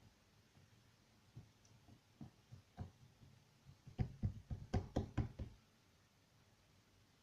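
A few scattered soft taps, then a quick run of about nine sharp knocks in a second and a half, a little past the middle.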